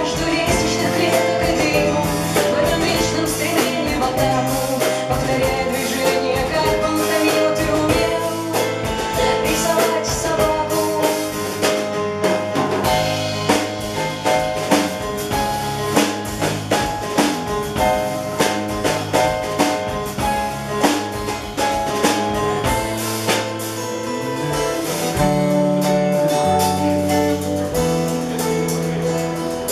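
Live band playing a song: a woman singing over a stage keyboard, electric bass, acoustic guitar and a drum kit.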